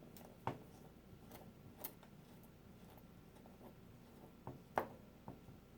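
A scattering of small, faint clicks and taps, the sharpest about half a second in and again near the end, from a screwdriver and small screws being worked as the laptop's LCD panel is screwed back into place.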